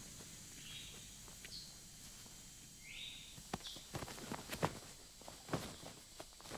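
Footsteps moving through jungle undergrowth, starting about halfway in, over a jungle background with a few short, high bird chirps.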